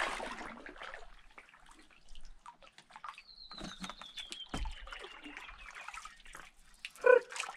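Water trickling and dripping off a paddle as an inflatable paddle board glides on still water, after a paddle splash that fades over the first second. In the middle a bird sings a run of high notes that falls steadily in pitch for about three seconds, and near the end there is a short, loud, pitched squeak.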